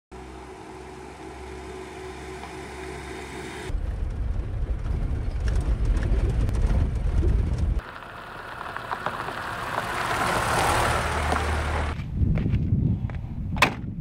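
A Lada Niva 4x4 driving on a gravel mountain road: the engine running with tyres on loose gravel, in several shots that change abruptly, louder as the vehicle comes close and passes. Near the end come a few clicks and one sharp click.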